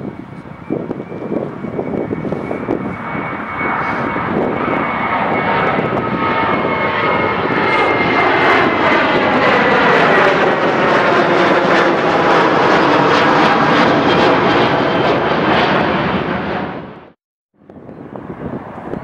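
The four turbofan engines of an Antonov An-124-100 running up to takeoff power, growing louder over the first several seconds, with a high whine that slowly drops in pitch as the aircraft rolls away. Near the end the sound cuts off abruptly, then wind noise follows on the microphone.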